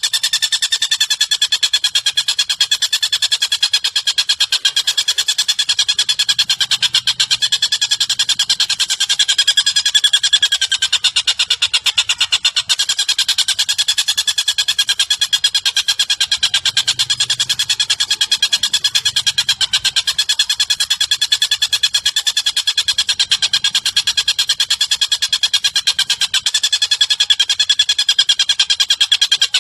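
Recorded bird call used as training audio for a lovebird: a fast, unbroken pulsing trill at a steady high pitch, repeated without pause.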